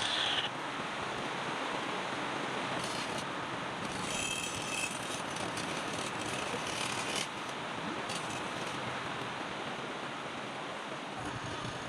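Steady scraping and rubbing of a tool or abrasive against wood spinning on a lathe, with a brighter, harsher stretch midway through.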